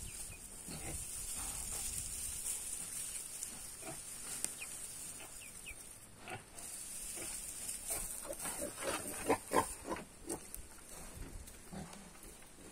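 Farm animals calling: a quick run of short calls about eight seconds in, the loudest part, with a few thin high peeps earlier, over a steady high-pitched buzz.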